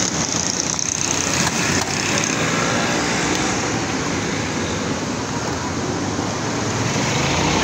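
Steady din of road traffic on a busy street, with a few faint clicks about a second and a half in.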